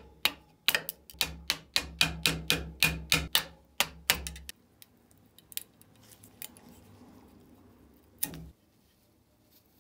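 A hammer striking a steel chisel in quick blows, about four a second for some four seconds, splitting the glued-in wooden handle off a ratcheting screwdriver. Then quieter scraping and handling of the splintered wood, and one more sharp knock near the end.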